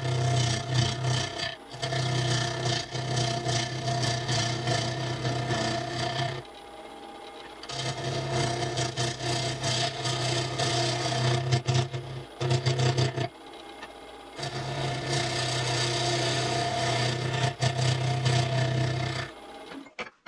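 Wood lathe running with a steady motor hum while the spinning red cedar segmented bowl is worked, giving a rubbing, scraping noise over the hum. The sound breaks off twice for a second or so and stops shortly before the end.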